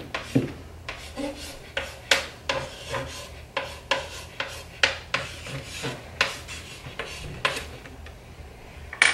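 Chalk writing on a small framed chalkboard: a run of short, irregular scratching strokes, with one sharper, louder stroke near the end.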